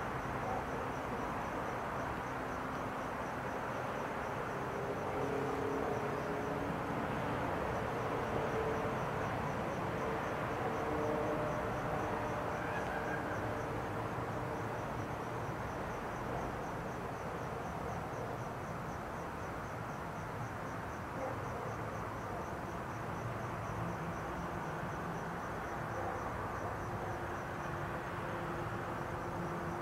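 Crickets chirping in a fast, even pulse over a steady low rumble with faint, slowly drifting hums.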